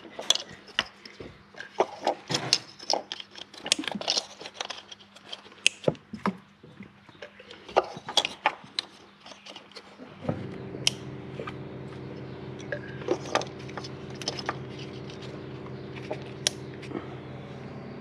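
Scattered clicks and light plastic and metal taps of ignition coils and their bolts being refitted on a Lexus LS430's V8. About ten seconds in, a steady mechanical hum starts and keeps going under the taps.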